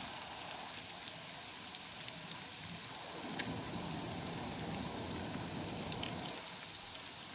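Eggs and diced vegetables sizzling in a skillet on a Coleman propane camp stove, with a few light clicks. From about three seconds in until near the end the sizzle grows rougher and louder as a utensil works through the pan.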